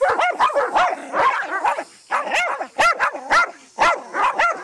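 A dog barking rapidly and repeatedly in quick runs of short, high barks while confronting a snake, with brief lulls about two seconds in and again near the end.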